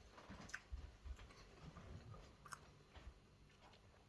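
Near silence with faint chewing and a few small mouth clicks from someone eating pie.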